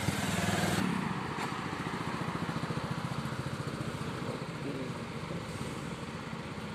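A motorcycle passes close by in the first second, over a tractor's diesel engine idling with a steady, even chug that continues after the motorcycle has gone.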